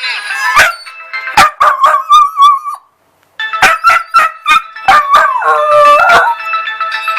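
A dachshund howling in long wavering notes with short sharp yelps in between, breaking off briefly about three seconds in.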